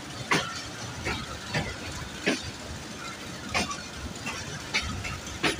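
Wheels of a moving passenger train clacking over rail joints and points: sharp, irregular clicks every half second to a second over a steady rolling rumble.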